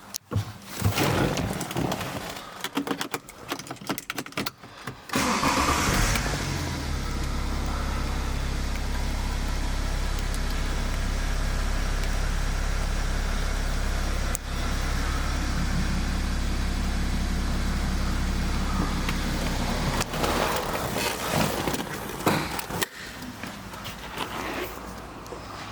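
BMW X5 engine started about five seconds in after some clicks and knocks, then idling steadily; the idle ends near the end among more handling noises.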